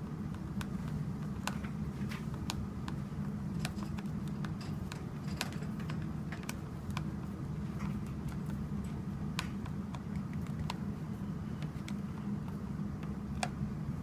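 Hand screwdriver turning screws into the plastic housing of a Sunbeam 1600 compact hair dryer: irregular small clicks and ticks, over a steady low hum.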